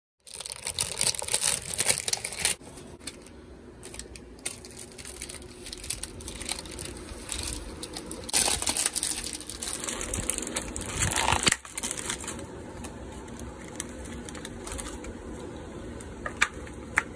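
Thin plastic packaging crinkling and rustling as plastic tubs of chocolate chips and a plastic bag are handled and opened, in irregular crackly bursts.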